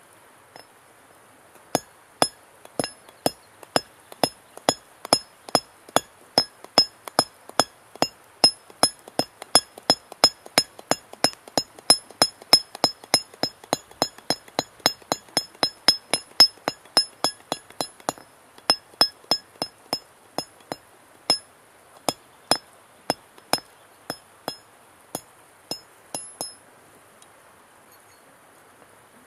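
Hand hammer striking steel in a steady run of about two blows a second, each with a bright metallic ring, typical of forging nails by hand; the blows stop a few seconds before the end. A stream rushes steadily underneath.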